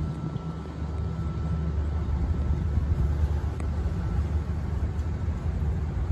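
Ferry M/F Ivar Aasen's engines running with a low, steady rumble as the ship moves slowly alongside the quay, getting a little louder about a second in.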